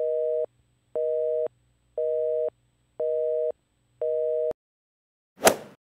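Telephone busy signal, the North American two-tone kind, beeping five times at about half a second on and half a second off. Then a single sharp hit with a short noisy tail near the end.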